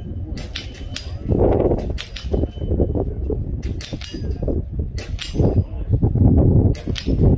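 Airgun shots and pellets smacking steel swinging targets: about a dozen sharp cracks at irregular intervals, some in quick pairs, over a steady low background rumble.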